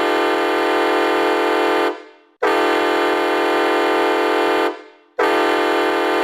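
Colorado Grit hockey goal horn sounding three long blasts of a steady, harmonic-rich horn tone. The first fades out about two seconds in, the second runs from about two and a half to four and a half seconds, and the third starts about five seconds in.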